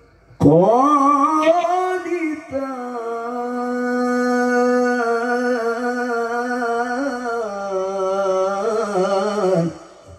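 A man's voice reciting the Quran in melodic tilawah style through a microphone and PA sound system. He holds one long drawn-out note for about nine seconds, starting with an upward swoop, mostly level through the middle and wavering into an ornament near the end before breaking off.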